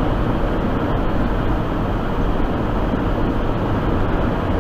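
Steady drone inside a semi truck's cab while driving on a snow-covered highway: diesel engine and tyre noise at an even level.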